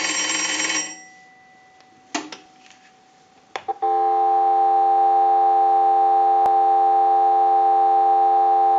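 Western Electric three-slot payphone's bell ringing on a test ring cycle, stopping about a second in. Two clicks follow, then from about four seconds in a steady dial tone comes through an amplified pickup.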